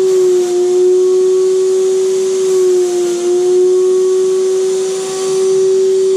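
Graco HVLP sprayer's turbine running with a steady high whine while its spray gun is in use, the pitch dipping slightly a couple of times.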